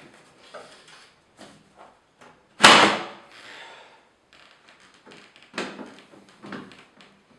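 Handling noises from a computer workstation case being worked on: light clicks, knocks and rubbing, with one loud clunk about two and a half seconds in that rings briefly.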